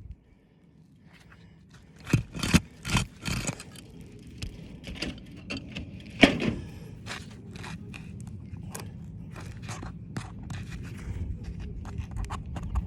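Roof shingle being worked loose by hand and tool: scraping with sharp knocks, a cluster of several loud ones about two seconds in and a single loud one near the middle, then many small clicks and scrapes.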